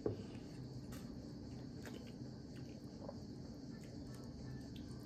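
A person eating semovita and soup, mostly quiet: a few faint, scattered mouth and finger clicks over a steady low hum and high hiss.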